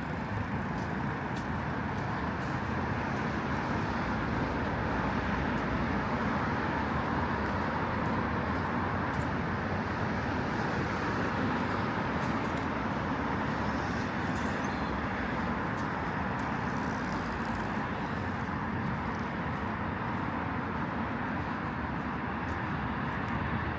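Steady road traffic on a city street: a continuous wash of car engines and tyres passing, with no single vehicle standing out.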